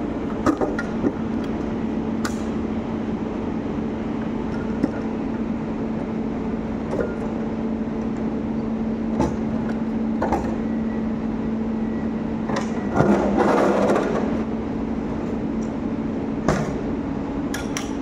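Steady hum of a standing electric train, with scattered knocks and clanks as a folding wheelchair boarding ramp is handled at the carriage door and laid out onto the platform; the loudest clatter comes about three quarters of the way in.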